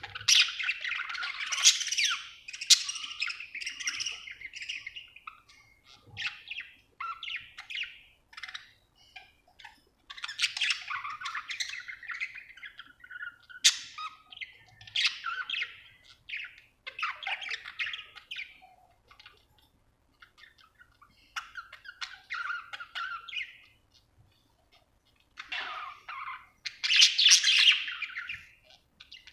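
Budgerigar chirping and warbling in bouts of a few seconds, with short pauses between them and a couple of sharp clicks.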